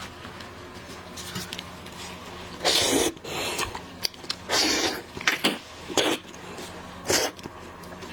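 Close-up eating sounds of a person eating shrimp: a series of short, noisy bursts, about six of them, between about three and seven seconds in.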